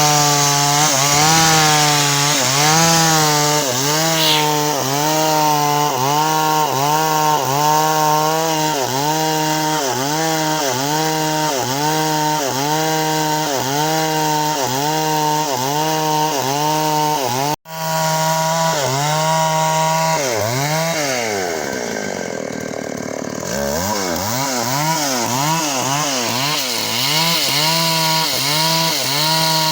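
Chainsaw cutting timber, its engine pitch dipping and recovering in a steady rhythm of about one and a half dips a second as it works through the wood. It cuts out for an instant past the middle, then sags lower for a couple of seconds before the rhythmic dips resume.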